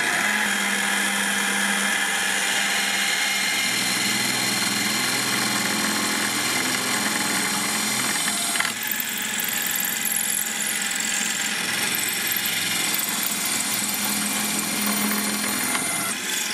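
Parkside PTBMOD 710 B2 bench pillar drill running at about 1340 rpm while a 6 mm twist bit cuts through the roughly 1 mm steel wall of a tubular box spanner: a steady motor hum and whine with metal-cutting noise. The cutting noise changes about halfway through.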